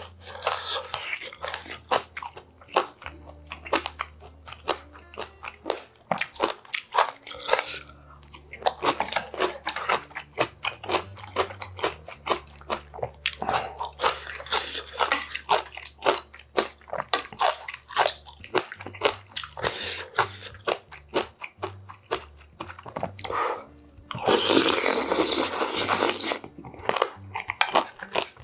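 Close-miked eating of clam sujebi soup: wet chewing and smacking of the mouth, with many short clicks. Near the end comes one long, loud slurp of broth, lasting a couple of seconds.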